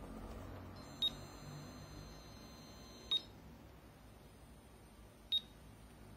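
Three short, high-pitched electronic beeps about two seconds apart, with a faint steady high tone held between the first and second beep, over a low background hum.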